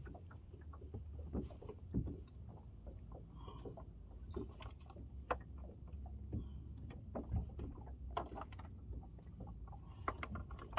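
Scattered knocks and clatter from a bass boat's livewell as the lid is opened and hands reach into the tank after the fish. A low steady rumble runs underneath.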